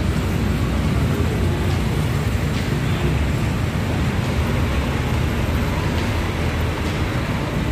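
Steady low rumble of street traffic, with vehicle engines running.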